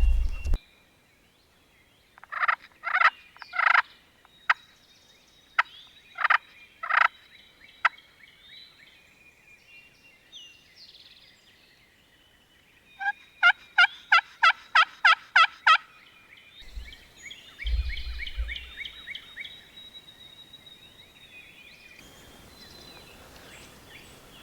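Wild turkey calls: a string of loud gobble-like calls a couple of seconds in, then near the middle a run of about nine evenly spaced yelps. A couple of low thumps follow shortly after.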